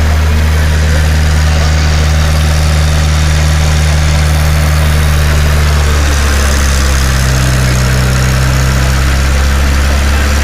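LS 30 drill rig running under power, a loud steady engine drone with a deep hum; one tone dips slightly lower about seven seconds in.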